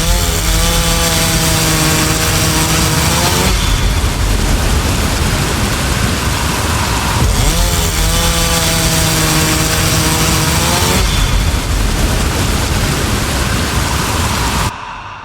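A chainsaw at full throttle, twice running free with a steady engine whine and then going rough and noisy as it cuts into wood. It cuts off abruptly near the end.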